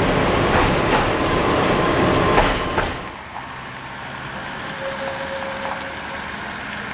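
Tatra tram running on an uneven track, heard from inside the car: a loud rumble with a few sharp clicks as the wheels pass rail joints. The sound drops suddenly about three seconds in to a quieter background with a faint steady whine.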